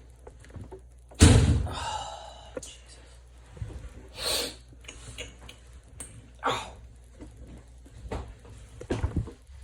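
A person's loud sneeze about a second in, a sudden blast trailing off in the voice. It is followed by several shorter sniffs and snorts of breath through a stuffy nose.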